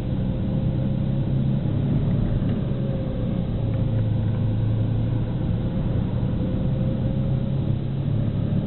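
Car driving, heard from inside the cabin: steady engine and road noise, a low hum with a faint steady whine above it.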